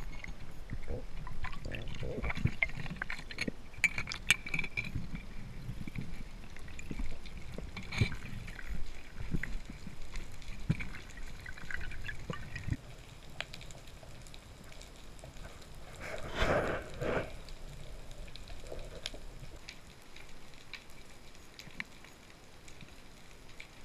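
Muffled underwater sound picked up by a camera in a waterproof housing: water moving and bubbling, with scattered small clicks and one louder rush of water about two-thirds of the way in.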